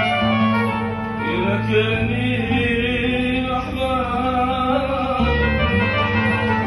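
Middle Eastern folk music: singing over a string instrument accompaniment.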